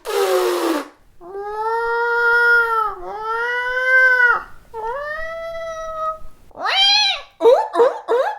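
A girl's voice imitating a cat: a breathy hiss, then three long, drawn-out meows and a shorter, higher one, followed near the end by quick choppy vocal sounds.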